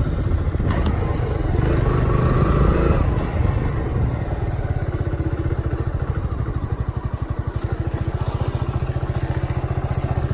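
Kawasaki Z125 Pro mini bike's single-cylinder four-stroke engine running, louder for the first three seconds, then dropping to a steady, evenly pulsing idle.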